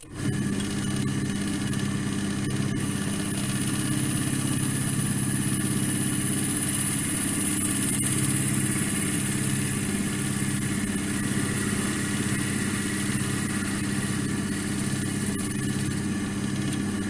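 Electric wood lathe starting up suddenly and running steadily with a hum and a high whine, then switched off near the end and spinning down.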